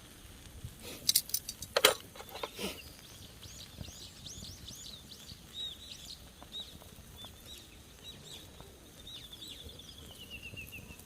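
A few sharp clicks and knocks about a second in, then small birds chirping again and again in the background, with a quick falling trill near the end.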